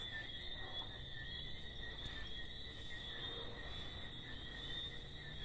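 Steady nighttime chorus of crickets, a continuous high-pitched trill at two pitches, over faint low background rumble.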